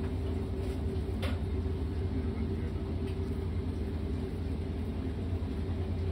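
Steady low machine hum with a faint steady tone above it, and a single light click about a second in.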